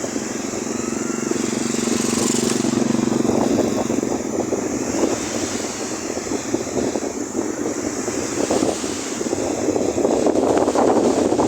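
Strong wind buffeting the microphone in irregular gusts over the rush of waves on a beach, with the gusts strongest near the end.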